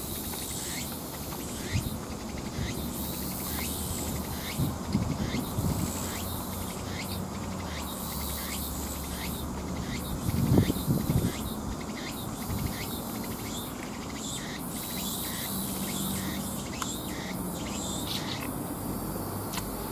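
Insects chirping, a short call repeated steadily about twice a second, with a soft low rustle or knock about ten seconds in.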